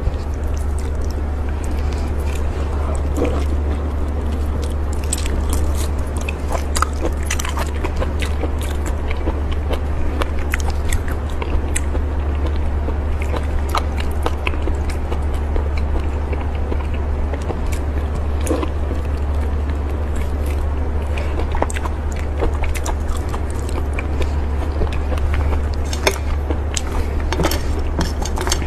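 A person biting and chewing seafood, with many short scattered clicks and crackles, over a steady low hum.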